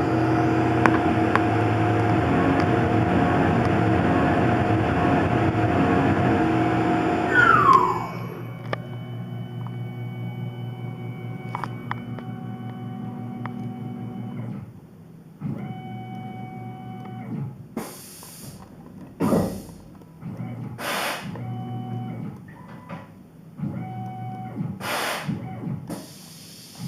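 Tormach PCNC 1100 CNC mill cutting MIC6 aluminium plate, the spindle and cut loud and steady, then winding down with a quick falling whine about seven seconds in. After that the machine's motors hum in steady stretches, broken by several short bursts of hiss.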